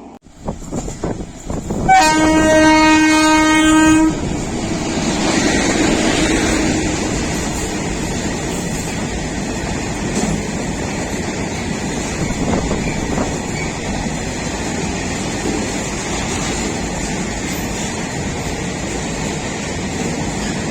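Train horn sounding one long blast of about two seconds, followed by a train running along the track with a steady rumble of wheels on rails.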